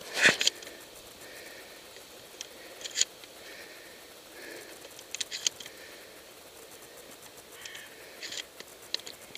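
A shotgun being handled: a sharp clack just after the start, then scattered short clicks, with a quick cluster of them around the middle and more near the end.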